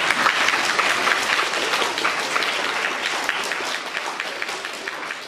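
A hall full of young children applauding, loud at first and slowly dying away.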